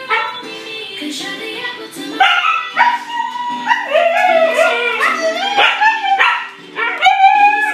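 Siberian husky puppy howling and yipping: from about two seconds in, a run of short, wavering howls that bend up and down in pitch, over background music with singing.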